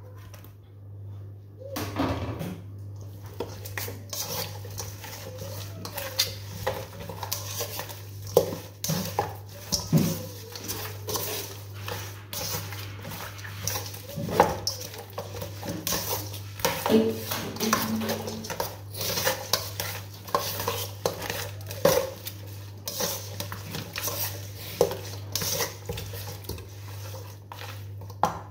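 Metal knife blade clinking and scraping against a stainless steel mixing bowl as seasoned turkey necks are stirred and tossed, in many irregular clatters.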